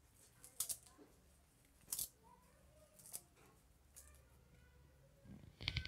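Fresh coriander being cut up by hand: a handful of faint, crisp snips about a second apart, with a quicker, louder cluster near the end.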